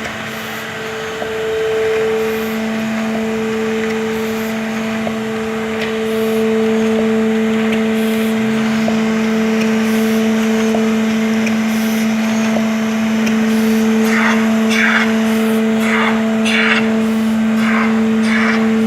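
Modified ZF 391 envelope-making machine running, with a loud steady motor hum. There are light regular ticks of its working cycle about once a second. In the last few seconds there is a series of short rushing bursts, roughly one to two a second.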